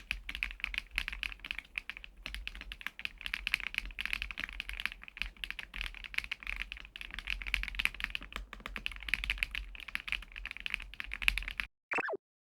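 Fast, continuous typing on a LUMINKEY LUMINO75 mechanical keyboard, a gasket-mounted aluminium-case board with PBT keycaps: a dense run of keystroke clacks that stops suddenly near the end. It is followed by a brief falling tone sweep.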